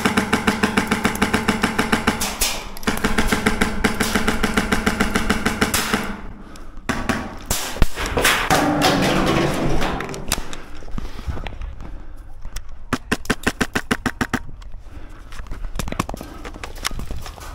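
Airsoft guns firing in rapid full-auto bursts. The first burst lasts about six seconds with a short break near three seconds in, and further shorter bursts come later.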